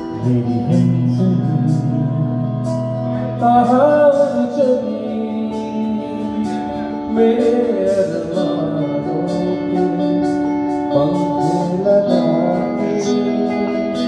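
Music with a singing voice over held notes and a steady beat.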